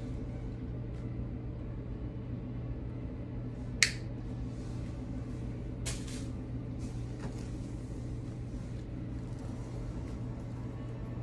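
Steady low hum with a sharp click about four seconds in and a softer click about two seconds later, from handling craft tools and artificial flower stems.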